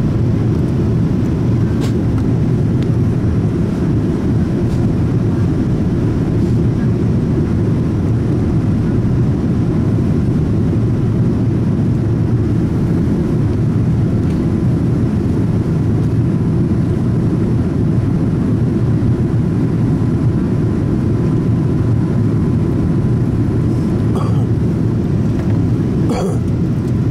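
Steady low rumble of a Boeing 787 Dreamliner's passenger cabin, engine and airflow noise heard from a window seat, holding an even level throughout.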